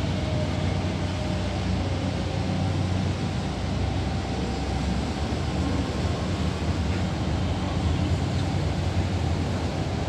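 Steady low rumble of a high-speed catamaran ferry's engines as it manoeuvres alongside its berth, with a faint whine over it in the first few seconds.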